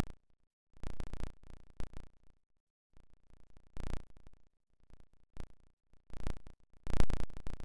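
Short bursts of background noise picked up by video-call microphones, each cutting in and out abruptly with dead silence between, as a noise gate opens and closes. The loudest burst comes near the end.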